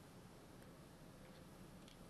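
Near silence: room tone with a few very faint ticks.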